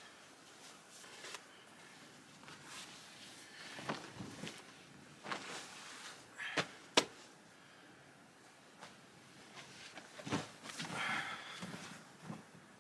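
Tanned hide and leather gear being handled and spread out on sandy ground: soft rustling and flapping with scattered knocks, and a sharp click about seven seconds in.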